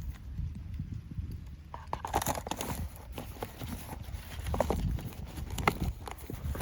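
Irregular crunching and clicking of trash being disturbed, busier from about two seconds in, over a low rumble.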